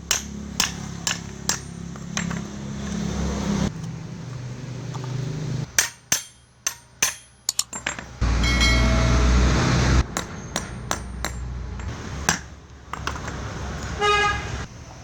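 Metal hammer taps driving the cooling fan onto the Hitachi drill's armature shaft, sharp clinking knocks in irregular groups. About eight seconds in, a louder steady noise runs for about two seconds.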